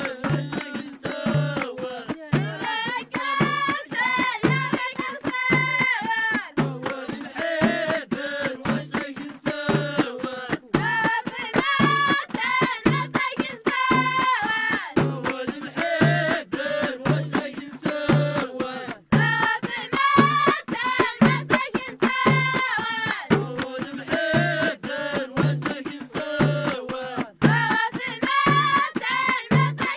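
Traditional Moroccan High Atlas song: high children's voices singing in phrases over a steady low hand-drum beat.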